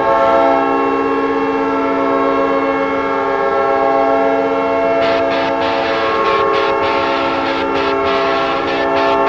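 Winnipeg Jets arena goal horn blaring as one long, steady, loud chord of several tones. From about five seconds in, a run of sharp crackles sounds along with it.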